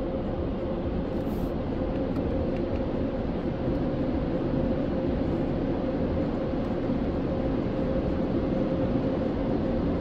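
Steady low rumble with a constant mid-pitched hum, heard from inside a car cabin: the idling car and the car wash tunnel's machinery.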